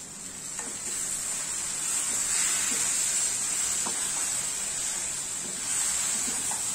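Pan of grated coconut cooking on the gas flame, sizzling steadily as crushed jaggery is stirred in with a wooden spatula, the sizzle growing louder over the first couple of seconds. A few faint scrapes of the spatula in the nonstick pan.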